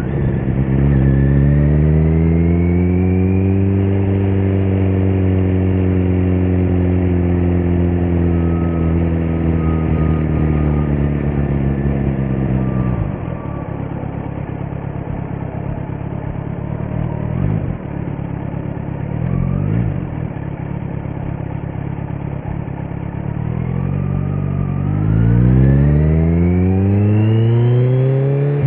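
2018 Kawasaki Z900's 948 cc inline-four running through a Leo Vince muffler on stock headers with no dB killer, heard from the rider's seat. The revs climb under acceleration, hold, then drop off about halfway through; after a lower stretch with a couple of short throttle blips, the engine revs climb steeply again near the end.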